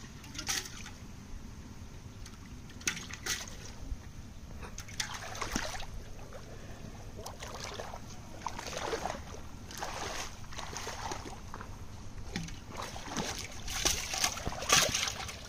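Shallow pond water sloshing and splashing in irregular bursts as it is waded through and stirred by hand. The splashes grow louder near the end.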